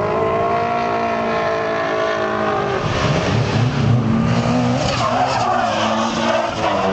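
Drift car sliding sideways under power: its engine revs, the pitch dipping and climbing again, and from about three seconds in its rear tyres squeal loudly as they spin and slide.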